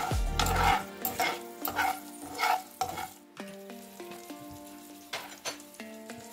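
A steel spoon stirring and scraping peanuts, dals and spices in hot oil in a frying pan, with the oil sizzling; several quick scrapes in the first three seconds, then the tempering frying with only a few light clicks.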